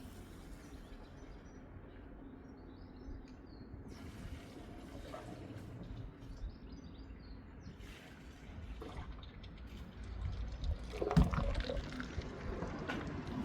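Water flowing and trickling through a freshly unblocked drain in a manhole, with a few knocks near the end.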